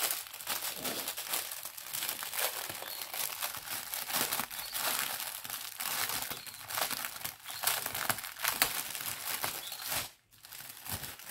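Plastic packaging of a diamond painting kit crinkling and crackling as it is handled and picked at to find the end of the wrapping, with a brief pause about ten seconds in.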